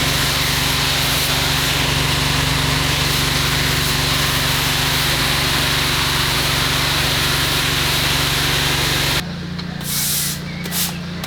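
Pressure washer spraying a steady high-pressure water jet over its pump's motor hum; about nine seconds in the spray cuts off suddenly and only the motor hum stays, with a few brief short sprays after.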